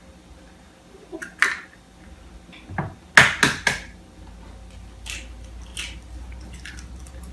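Eggs being cracked against a mixing bowl and the shells pulled apart: sharp taps and cracks, the loudest a quick cluster about three seconds in, with lighter clicks before and after.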